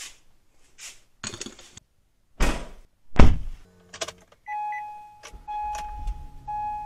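Getting into an Acura: clicks and knocks, then a car door shutting with a loud thunk about three seconds in. The car's electronic warning chime follows, a steady tone sounding three times over a low hum, as the ignition is switched on and the dashboard warning lights come up.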